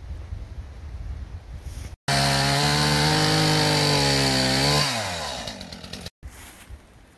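Two-stroke chainsaw running hard at a steady pitch for about two and a half seconds, then winding down in pitch as the throttle is let off. Before it come low rustling and knocks of a log being handled in dry leaves.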